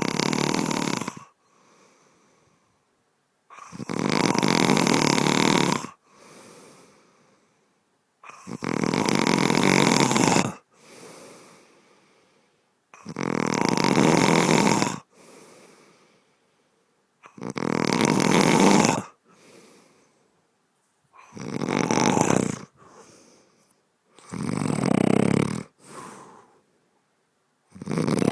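Snoring in a steady slow rhythm: a loud snore about two seconds long roughly every four seconds, each followed by a brief, much fainter sound.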